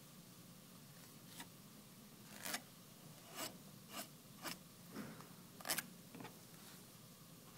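A fillet knife scraping along a fish's bones as a fillet is cut free, in about eight short rasping strokes a half-second or so apart.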